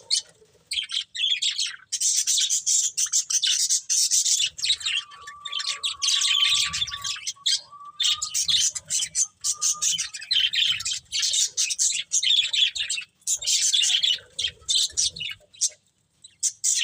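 Budgerigars chattering: rapid high chirps and warbles in bouts of a few seconds with short breaks between them, and one longer steady whistled note partway through.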